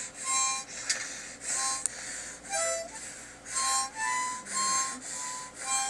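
A small child blowing and sucking on a harmonica in about seven short, uneven puffs, each a breathy reedy chord with no tune.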